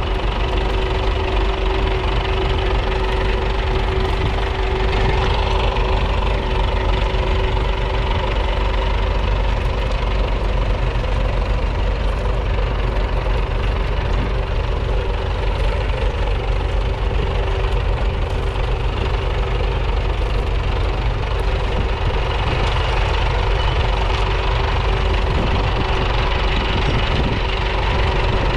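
1938 Fordson Model N tractor's 4.4-litre four-cylinder side-valve engine running steadily under load as it pulls a two-furrow trailed plough through the soil.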